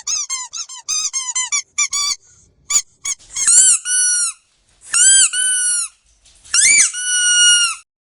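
Squeaky dog toy being squeezed: a quick run of short squeaks, then a few single sharp ones, then three long drawn-out squeaks.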